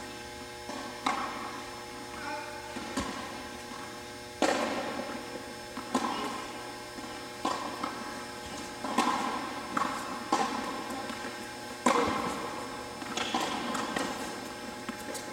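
Tennis rally on an indoor court: about a dozen sharp racket hits on the ball, roughly one every second or so, each ringing in the hall's echo, over a steady hum.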